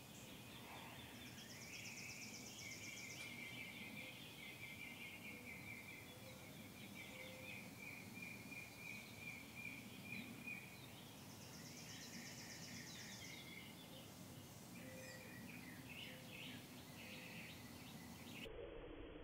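Faint outdoor ambience of birds chirping and trilling in the trees, repeated high calls over a quiet steady background hiss.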